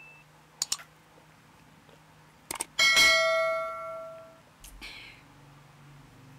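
A drinking glass clinked in a toast about three seconds in, ringing clearly for about a second and a half before fading, with a couple of light taps before it.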